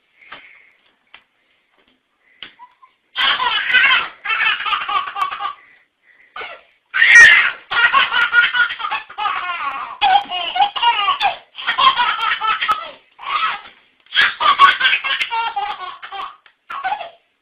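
A baby laughing hard in long, repeated fits of belly laughter, starting about three seconds in after a nearly quiet opening.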